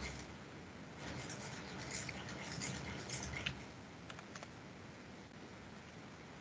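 Faint computer keyboard typing: a few light, scattered keystrokes in the first few seconds over a steady low hiss.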